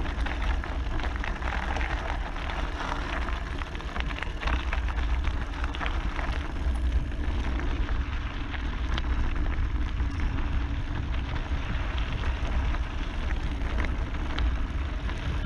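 Mountain-bike tyres rolling and crunching over a loose gravel road on a descent, with small stones clicking and the bike rattling, under steady wind rumble on the bike-mounted action camera's microphone.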